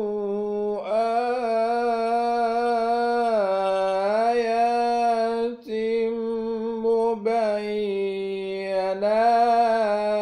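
A man reciting the Quran in melodic tajweed style, drawing out each word in long held notes with ornamented turns, in the sad maqam Saba. There is a short breath break about halfway through.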